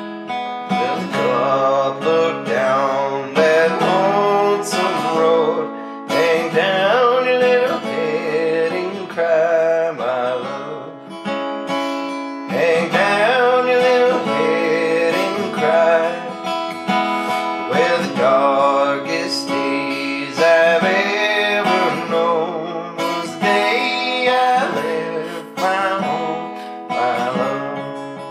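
Acoustic bluegrass-style string music: guitar strumming under quick, plucked melody notes, playing without a break.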